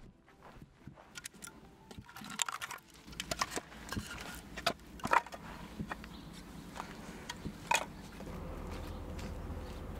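Split firewood logs knocking and clattering against one another as they are pulled from a woodpile and gathered into an armful, in irregular wooden clunks.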